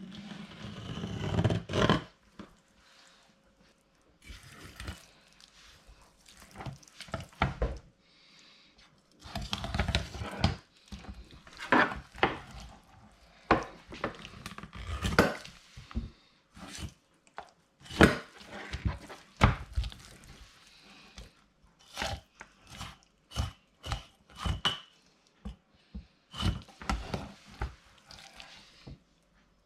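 Filleting knife cutting and scraping through a turbot, with irregular knocks and taps of the blade and fish on a wooden board.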